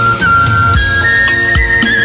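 Music playing loud through a pair of large wooden floor-standing hi-fi speakers: a held melody line that slides between notes, over bass notes and drum kicks.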